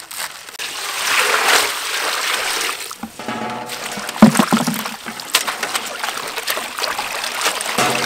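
Water splashing and trickling as hands swish bunches of water spinach through a large metal basin of water, with a louder thump about four seconds in.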